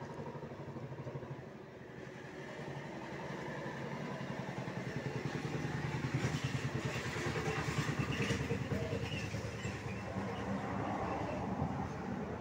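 A motor vehicle engine running, its low pulsing hum growing louder over several seconds and then easing off, like a vehicle passing close by.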